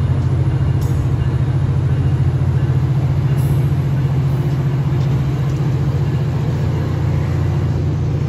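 Steady low drone of a Tri-Rail commuter train's diesel locomotive running at a standstill, unchanged throughout, with a couple of faint clicks.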